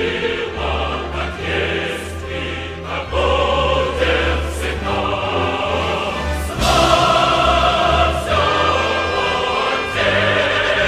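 Background choral music, a choir singing, growing louder about two-thirds of the way in.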